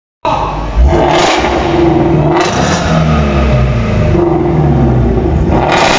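Ford F-150 3.5 L V6 engine running and being revved up in several surges, with a strong, dry knock from the lower rear side of the block that the mechanic traces to a broken piston skirt.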